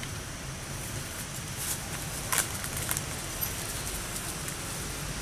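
Steady outdoor background noise with a few short dry crackles between about two and three and a half seconds in, the sharpest near two and a half seconds, from dry fallen leaves being disturbed.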